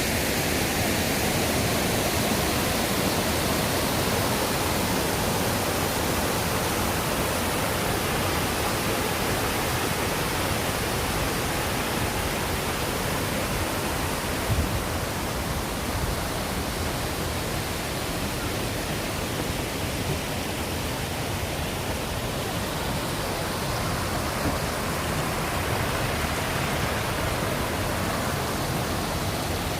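Cuigu Waterfall's water rushing steadily, an even wash of noise with no rise or fall.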